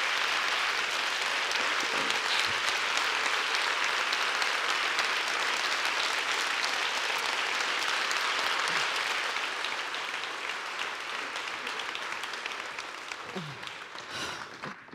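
Large audience applauding, a dense steady clatter of clapping that dies away over the last few seconds.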